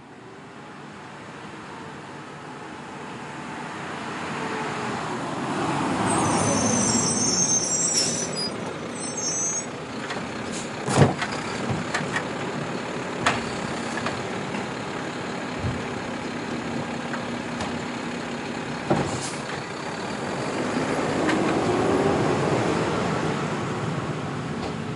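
Garbage truck's engine running and revving up and down while it picks up trash, with a high squeal early on. Several sharp clanks and bangs of the pickup come in the middle, the loudest about eleven seconds in. The engine revs again near the end.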